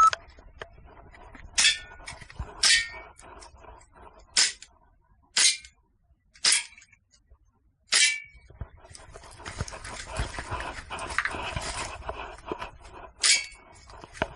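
Airsoft gun firing seven single shots at tin can targets, mostly about a second apart, with a pause before the last. Several shots are followed by a short metallic ring from a hit can. A short beep sounds right at the start, and a rustling noise runs through the long pause.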